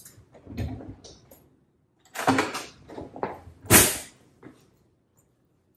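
A kitchen drawer being opened and pushed shut while a spoon is fetched: a soft thump, then a few knocks and rattles, the loudest a sharp clatter about four seconds in.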